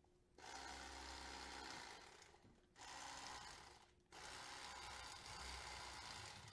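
Electric fillet knife's motor running in three stretches as its blade cuts through a walleye along the backbone toward the tail. It starts about half a second in, stops briefly around two seconds, and again for a moment near four seconds.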